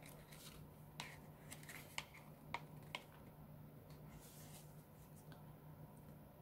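Faint handling of a small handmade paper journal: a few light ticks and rustles of paper as the pages are fingered and one is turned, over a low steady hum.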